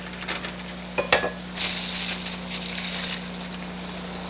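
A large spoon knocks against a skillet about a second in with a short metallic ring, then scrapes through simmering tomato sauce, hissing for a second or two, over a steady low hum.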